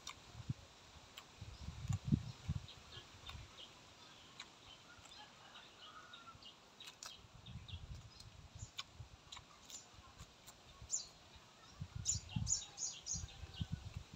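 Quiet chewing and mouth sounds of a person eating fresh lettuce leaves and grilled pork sausage, in several clusters of low smacking with crisp, crackly high ticks from the crunching.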